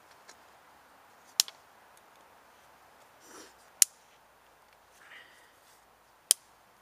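Small fire of dry kindling sticks crackling, with three sharp pops about two and a half seconds apart, and a soft rustle of sticks being handled between them.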